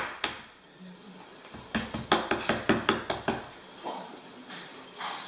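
Sharp clicks and taps of spoons and small containers being handled on a hard tabletop: one loud click at the start, then a quick cluster of about a dozen light clinks in the middle, and a few softer taps near the end.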